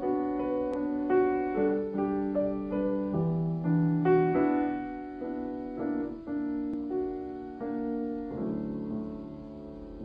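Background music: a slow piano melody, each note dying away after it is struck, ending on a held chord that fades out.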